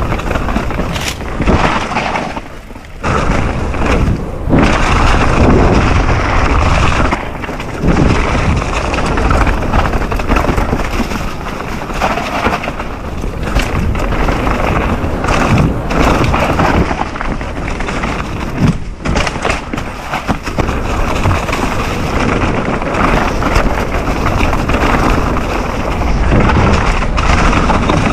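Mountain bike ridden hard down a rough enduro trail: tyres over dirt and rocks with repeated thuds and rattles from the bike, and wind buffeting the microphone, with two brief lulls in the first third.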